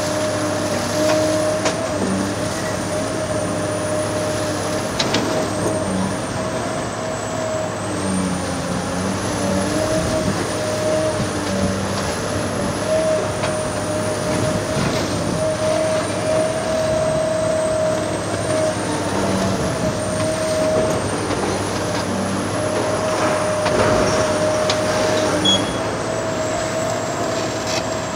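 Heavy demolition excavator's diesel engine and hydraulics running steadily under load, with a steady whine and a few short knocks from the work.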